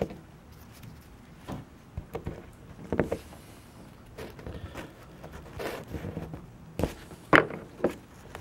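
Irregular clicks and knocks of hard plastic as the orange cover and yellow insert of a replacement plug end are handled and pushed together by hand, the loudest clack a little over seven seconds in. The cover is binding on the insert and not seating.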